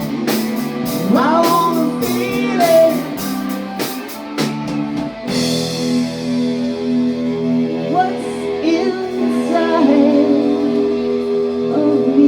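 Live rock-blues band with electric guitar, drum kit and male singer playing the end of a song: sung wordless notes over repeated cymbal and drum hits, then about five seconds in the drums stop and the band holds a final chord that rings out.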